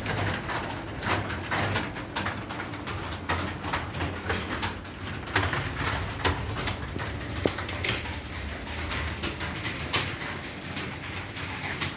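Computer keyboard keys being typed on continuously in quick, irregular strokes, over a steady low hum.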